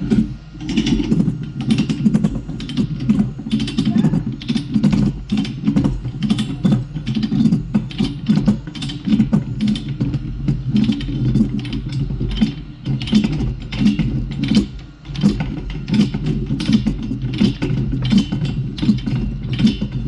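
Hand tool worked in quick repeated strokes against a steel bar, about two or three a second, over a low steady hum, with a short pause about fifteen seconds in.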